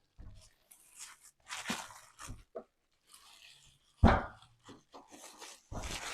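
Packaging being handled and torn open: irregular crunching and tearing noises, with one sharp thump about four seconds in.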